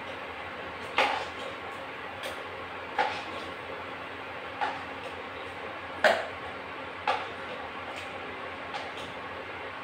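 Metal spoon stirring chicken curry in a pan, knocking against the pan eight times at uneven intervals of about a second, the loudest about six seconds in, over the steady hiss of the curry boiling.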